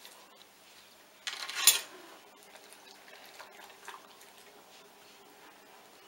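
Hard plastic dog nail-file board being handled on carpet: a short rasping scrape about a second and a half in that ends in a sharp clack, then faint scattered clicks and taps.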